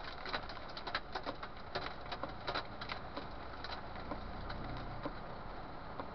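Hailstones striking the windshield and body of a moving vehicle, heard from inside the cab as irregular sharp clicks over steady road noise; the hits thin out after about four seconds.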